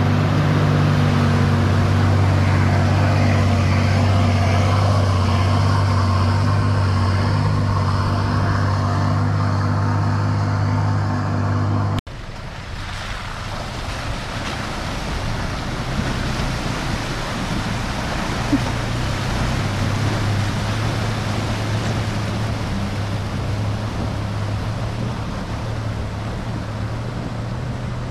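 Nissan Patrol's TD42 4.2-litre straight-six diesel engine running steadily. About twelve seconds in, the sound cuts abruptly to a steady rushing noise with the engine lower beneath it.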